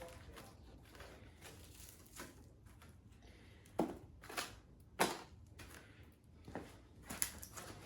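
Faint handling noises: a few scattered light knocks and rustles, the clearest about four and five seconds in.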